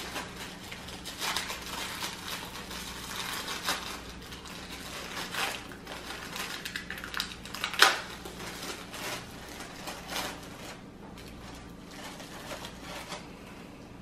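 Saltine crackers being snapped by hand and dropped into a glass blender jar, with the crinkle of the cracker sleeve: an irregular run of crisp cracks and light clicks, with one sharper knock about eight seconds in.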